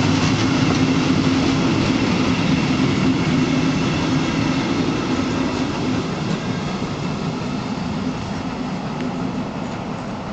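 Passenger coaches rolling past on the rails, a steady rumble of wheels and running gear that fades as the last coach goes by about six seconds in and the train draws away.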